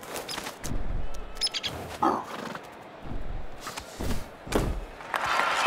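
Several dull thumps with sharp clicks, and a short animal call about two seconds in. Applause starts near the end.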